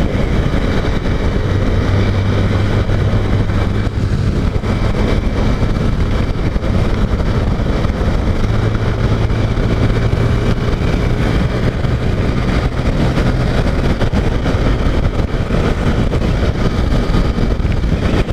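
Honda CG 150 Titan's air-cooled single-cylinder engine running steadily while the motorcycle rides at highway speed, with wind rushing over the helmet microphone.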